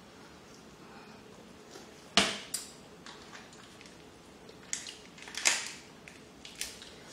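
Crab leg shells cracking as they are snapped apart by hand: a few sharp cracks, the loudest about two seconds in and another about five and a half seconds in, with smaller snaps between.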